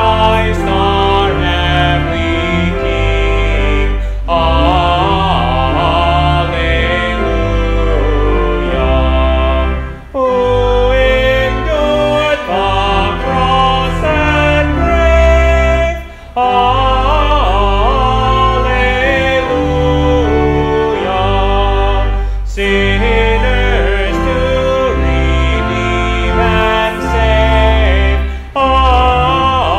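A hymn sung by voices over sustained instrumental accompaniment, in phrases of about six seconds with a short break between each.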